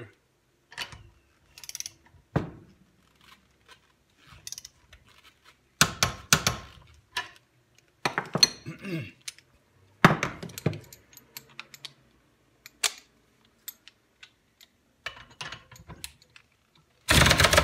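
Metal hand tools being handled at a bench vise: sockets and wrenches clinking, set down and fitted, with a few louder knocks. Near the end an ACDelco 3/8-inch cordless ratchet starts running against a bolt torqued to 50 ft-lb.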